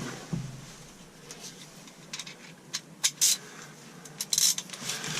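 Socket wrench with a 17 mm socket working on the seat belt's upper anchor bolt in a VW Vanagon: scattered sharp metallic clicks and clatter, most of them in the second half.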